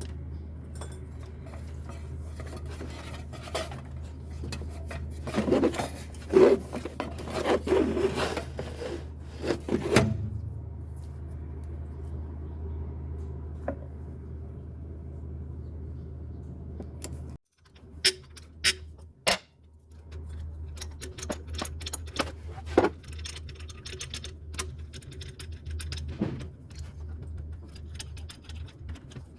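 Metal clanking, clicking and scraping, like hand tools working on an engine's belt and pulleys, over a steady low hum. The clanks come in clusters about a quarter of the way in and again after a short break in the middle.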